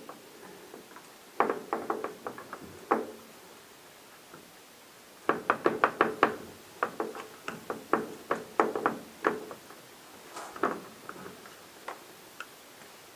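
A motorcycle front brake caliper and its pads being handled and worked over the brake disc: quick clusters of clicks and knocks, the longest lasting about four seconds.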